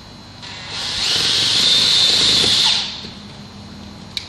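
Cordless drill driving a number 10 self-tapping screw into a steel door, running for about two and a half seconds and then stopping.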